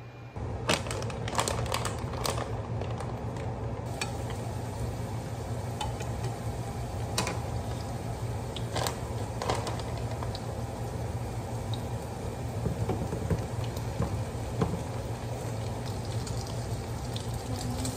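Gnocchi pan-frying in a skillet: a steady sizzling hiss with scattered sharp clicks and knocks of food and utensils against the pan.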